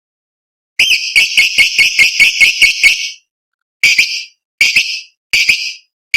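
Lovebird giving shrill, rapid chirps: a fast run of about ten notes starting about a second in, then four short separate bursts roughly once a second.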